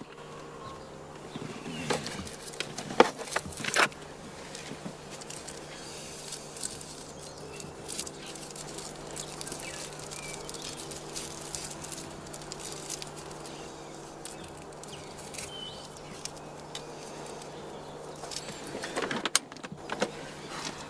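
Small handling noises in a car cabin: sharp clicks, knocks and rustles from a small object worked in the hands, loudest about three seconds in and again near the end, over a steady low hum, with faint bird chirps now and then.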